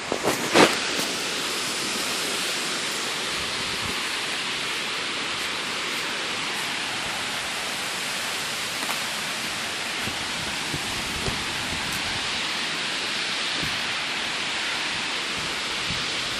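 Strong wind rushing steadily through trees in a windstorm, an even hiss that does not let up. A sharp knock comes about half a second in.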